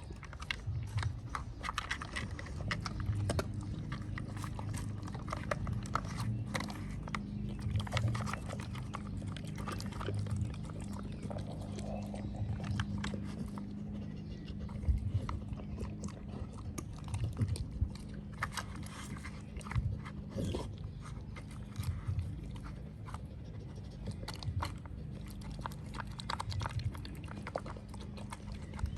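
A dog nosing and pawing at a plastic brick puzzle toy, with irregular clicks and knocks of the plastic pieces being shifted, and chewing on the treats it uncovers. A steady low hum runs underneath.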